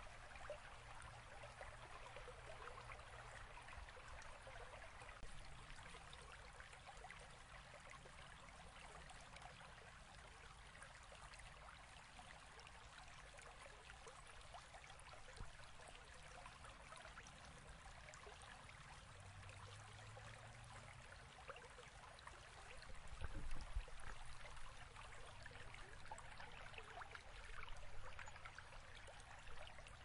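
Small rocky stream rushing and splashing over stones and a low cascade, a steady even rush of water. A brief low rumble comes about two-thirds of the way through.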